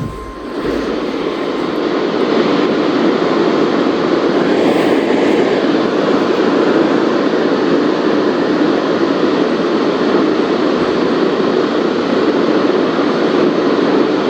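Radio static from an RTL-SDR receiver on the NOAA weather radio band: a steady hiss with no signal on it, fading up over the first second or two and then holding level.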